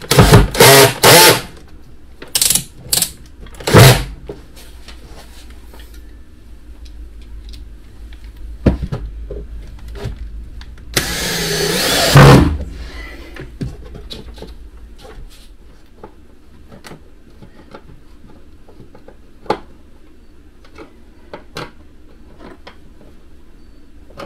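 Cordless drill running in several short bursts in the first few seconds, then a longer run about 11 seconds in that gets louder before it stops. Small clicks and knocks of handling come in between.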